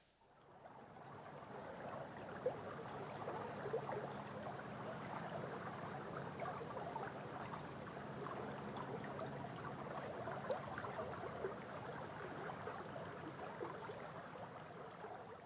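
Babbling stream water, a steady gurgling wash that fades in at the start and out at the end, with a few sharper ticks in it.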